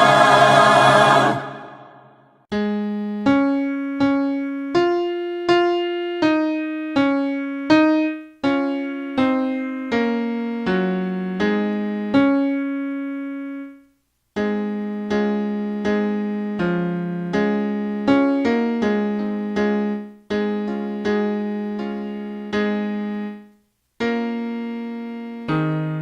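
A held keyboard chord fades out, then an electric piano plays a hymn line in the baritone range, one note at a time, each struck and left to decay. The line stops briefly twice.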